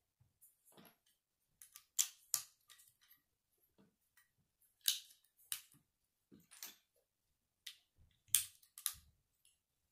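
Plastic Lego bricks clicking and clacking as a small model is handled and pieces are fitted together: irregular sharp clicks, the loudest in pairs about two, five and eight seconds in.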